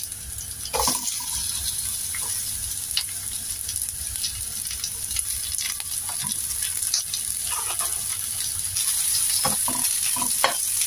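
Red onion and garlic sizzling in a little oil in a stainless steel frying pan, stirred and pushed apart with a spatula that scrapes and taps against the pan. The sizzle is steady, with the scraping getting busier and louder near the end.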